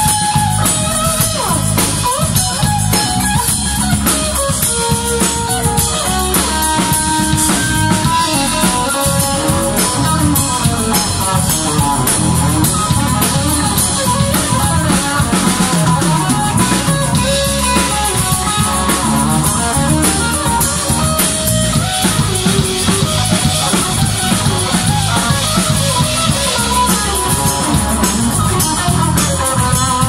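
A live band playing an instrumental: electric guitar and bass guitar over a drum kit and timbales, steady and loud with no break.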